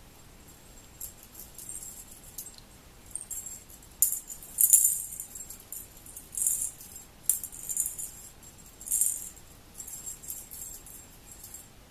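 Irregular bursts of high-pitched rattling and jingling from a small object, loudest about four to five seconds in.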